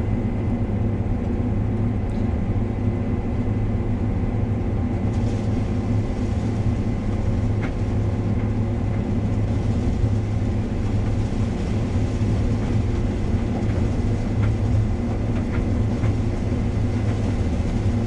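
Combine harvester running, heard from inside the cab: a steady low engine and machinery drone with a faint high whine.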